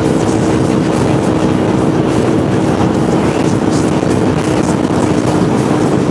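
Motorcycle engine holding a steady drone at cruising speed, under a thick rush of wind on the microphone.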